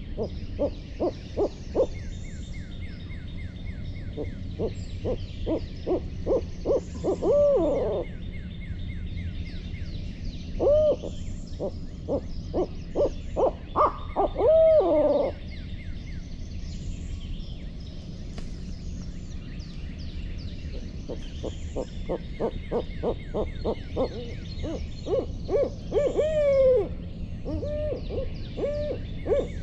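Barred owl calling excitedly: runs of quick hoots, each run ending in a long hoot that slides downward, repeated several times. Small birds chirp faintly behind.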